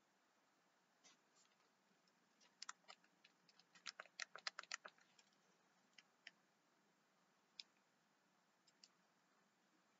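Faint clicks of a flip phone's keypad buttons being pressed to dial a number: a quick run of presses between about three and five seconds in, then a few single presses later.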